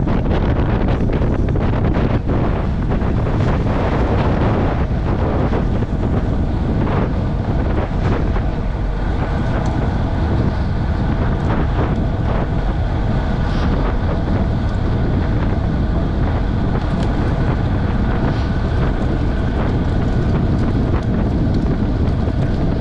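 Steady loud wind buffeting the microphone of a road bike on a fast downhill descent.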